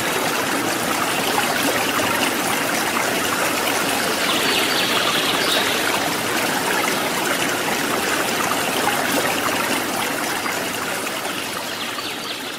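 Steady rushing, trickling running water, easing off slightly near the end.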